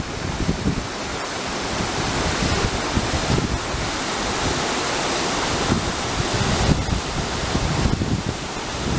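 Steady rush of a 40 m waterfall, with wind buffeting the microphone in irregular low gusts.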